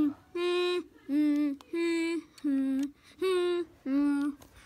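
A person's voice repeating a short held note about seven times, roughly one every two-thirds of a second, in a sing-song wail.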